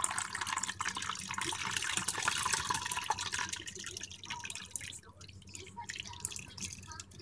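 Water and soaked Orbeez water beads pouring from a plastic container into a plastic bowl, a dense run of small splashes and clicks that thins out after about four seconds.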